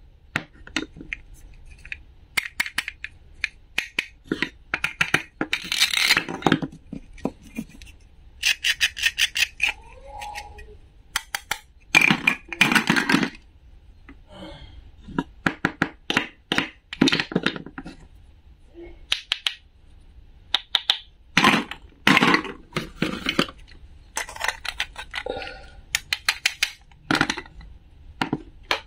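Hard plastic toy play-food pieces and a wooden toy knife clicking, tapping and scraping as they are handled over a wooden toy cutting board. The sound comes in irregular bursts of sharp clicks and rubbing, with a few denser runs of rapid clicks.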